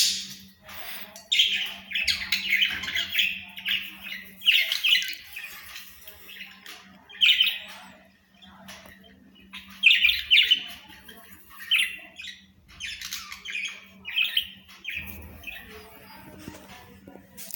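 Budgerigars chattering and squawking in short, irregular bursts, with brief pauses between them.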